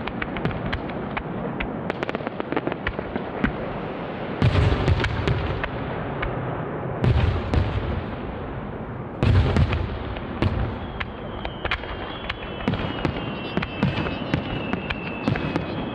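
Aerial fireworks going off: continuous sharp crackling, with three heavy booms at intervals, and a pair of high whistling tones that slowly fall in pitch over the last few seconds.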